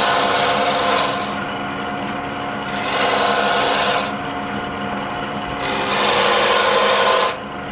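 Jet wood lathe running with a steady hum while a turning tool cuts into the spinning wood blank, shaping a tenon on its end: three scraping, hissing cuts of a second or so each, with only the motor's hum between them.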